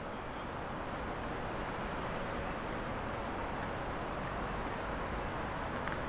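Steady road traffic noise: a continuous, even rush of cars and buses passing along a busy street, rising slightly in level over the first couple of seconds.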